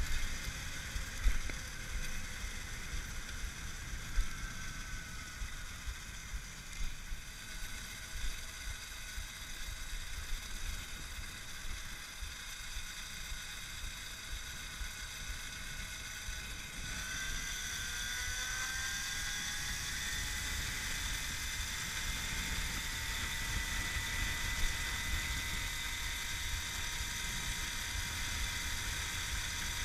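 Electric moped's brushless motor (Axi 5345/14HD outrunner on a Jeti Spin ESC) whining thinly under a steady rumble of wind on the microphone, with a few wind knocks early on. About two-thirds of the way through, the whine rises in pitch as the moped speeds up, then holds steady.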